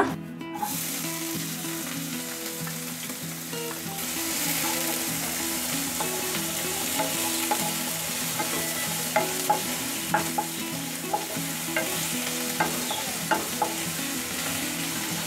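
Chopped onions sizzling in hot sesame oil in a non-stick pan, being sautéed toward translucent. A wooden spatula stirs them, with sharp clicks against the pan that come more often in the second half.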